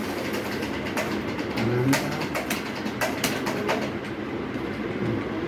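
Computer keyboard keys being struck during a typing test: sharp, irregular clicks, roughly two a second.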